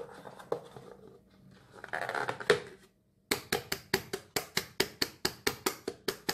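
Scrape and knock of an aluminium tray being turned over onto a plastic plate about two seconds in. Then a quick, even run of sharp taps from a hand striking the bottom of the upturned tray, about six a second, to loosen the set bottle-gourd dough inside.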